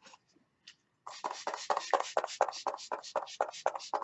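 MAC Prep + Prime setting spray's pump mist bottle spritzed rapidly over and over, about five short hissing sprays a second, starting about a second in after a few faint clicks.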